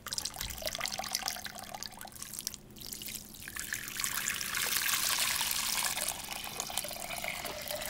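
Dark acorn iron-gall ink poured in a steady splashing stream, first from a jar into a bucket, then from the bucket into a ceramic pot. The pour grows louder and fuller from about four seconds in.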